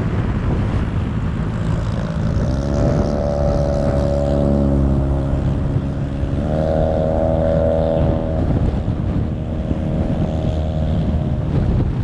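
Motor vehicle engine running on the move over steady wind and road rush on the microphone. Its pitched hum rises in about two and a half seconds in, steps higher around six and a half seconds, and drops back and fades near the end.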